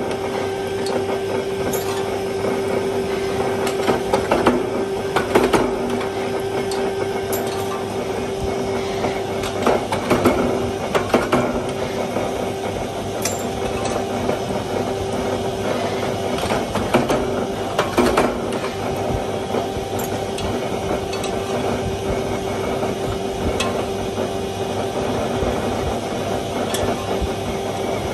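Hydraulic forging press running with a steady hum, with metal clanks and knocks as hot steel pieces are struck in the die and handled with tongs; the louder knocks come in clusters several times.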